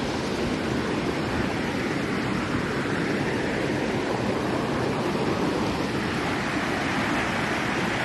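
Rocky mountain stream and waterfall, water rushing steadily over boulders with an even, unbroken noise.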